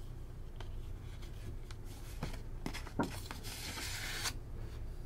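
Paper postcards being handled and swapped: a few light taps and clicks, then about a second of paper sliding and rustling, over a steady low hum.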